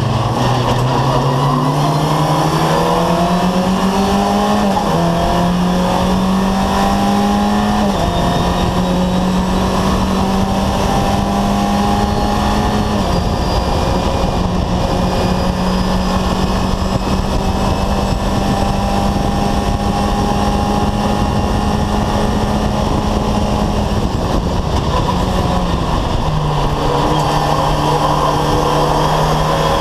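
VW Fun Cup race car's engine heard from inside the cockpit under hard acceleration: the revs climb over the first few seconds, with upshifts about five and eight seconds in. The engine then holds steady at high revs for a long stretch before the revs fall near the end as the driver lifts and shifts down.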